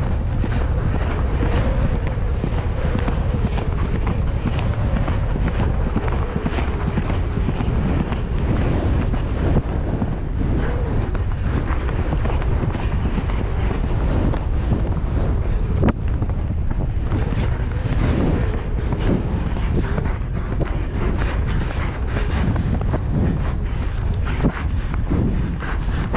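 Hoofbeats of an eventing horse moving at speed over grass on a cross-country course, under heavy wind buffeting on a helmet-mounted camera.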